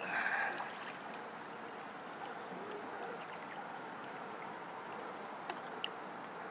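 Soft water sloshing and lapping as a swimmer moves through pool water, with a short louder splash at the very start.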